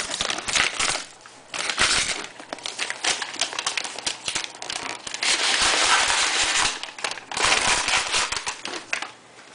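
Brown kraft packing paper crumpling and crinkling as it is pulled and handled out of a cardboard shipping box. The crinkling comes in irregular bursts, with a longer unbroken stretch a little past the middle.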